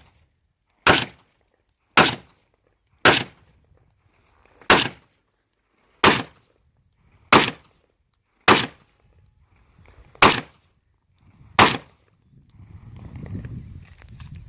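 A .30 bore (7.62×25mm Tokarev) PX-3 pistol fired nine times in slow, deliberate succession, one shot every second or so, each a sharp crack with a short echo. A low rumbling noise follows in the last two seconds.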